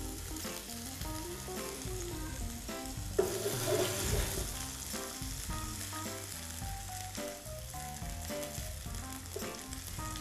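Baby vegetables (carrots, radishes, romanesco florets) sizzling in hot oil in a nonstick frying pan as they brown, turned over with a fork. The sizzle surges suddenly about three seconds in, then settles back to a steady hiss.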